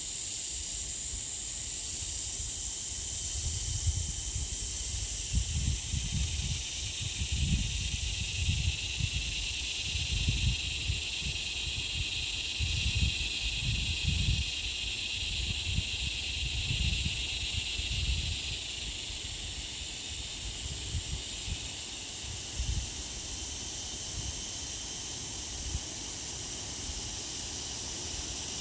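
Steady chorus of insects: a high, even buzz with a faint, regular pulsing chirp above it. Low buffeting on the microphone comes and goes between about three and eighteen seconds in.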